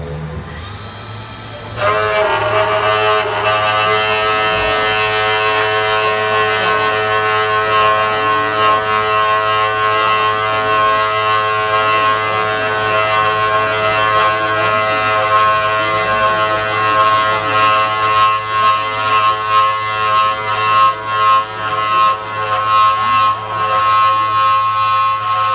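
Small CNC machine's spindle motor starting about two seconds in and running with a steady high whine over a low hum; from about eighteen seconds in the sound turns uneven and pulsing.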